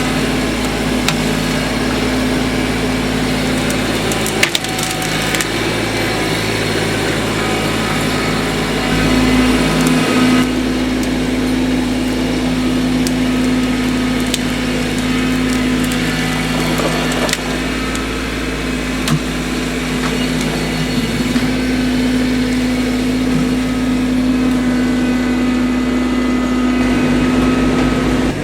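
An engine running steadily, with wood cracking and splintering over it.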